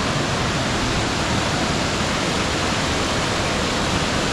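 Loud, steady rush of falling water from a waterfall.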